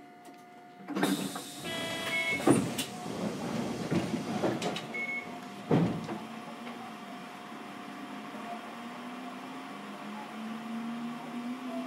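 Inside a Hiroden 3900-series tram standing at a stop: doors working with knocks, a short electronic chime and a loud thump, then a steady low hum that slowly rises in pitch.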